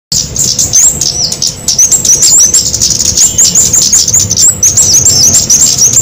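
Bird-lure recording of flowerpeckers (cabean) calling: many rapid, high, thin chirps, several a second, overlapping into a dense chatter over a low hum.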